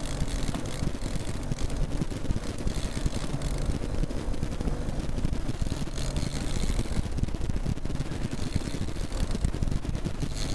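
Fishing boat's motor running steadily at trolling speed, under a constant rush of wind and water noise.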